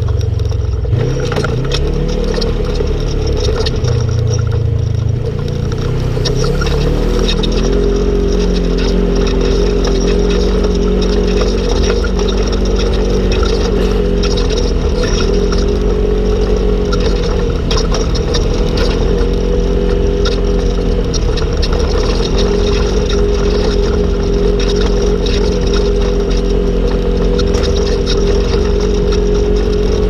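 Polaris RZR RS1 side-by-side driving along a dirt trail. Its engine speeds up over the first several seconds and then holds a steady drone, with rattles and knocks from the machine over rough ground.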